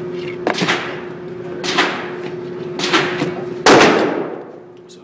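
Four pistol shots from a .40 S&W Glock 23 Gen4, about a second apart, the last the loudest, each ringing on in the indoor range. A steady hum runs underneath.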